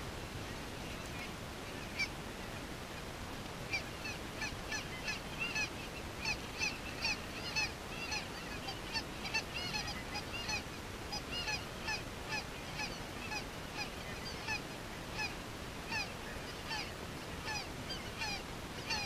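Geese honking: many short, high calls, a few per second, starting a few seconds in and keeping on, over a steady hiss.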